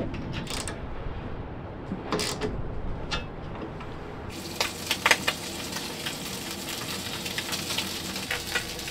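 A few metal clicks and clinks of a socket ratchet working stainless steel bolts. About four seconds in, this gives way to the steady sizzle of eggs and sausages frying in a pan, with a few sharp clinks.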